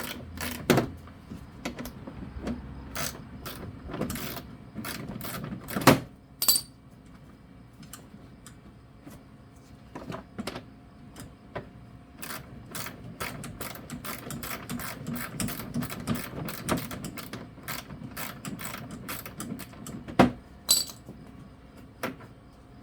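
Hand tools and small metal parts clicking and clinking irregularly, with a few louder sharp knocks, as a snowblower's two-stroke carburetor is taken apart.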